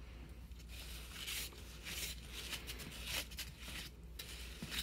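Faint, irregular scratchy rustling and scraping, in short clusters about a second apart.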